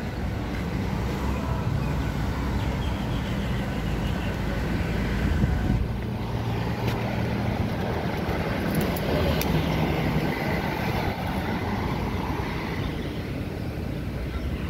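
Road traffic on a city street: cars and a van driving past, a steady rumble of engines and tyres.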